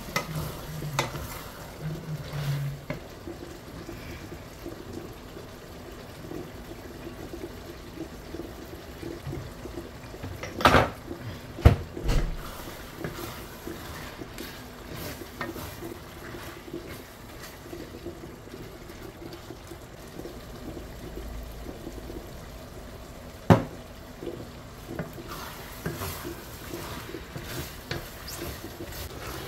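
Wooden spatula stirring a thick, wet stew in a stainless steel pot, with a few sharp knocks partway through, two close together and one more later.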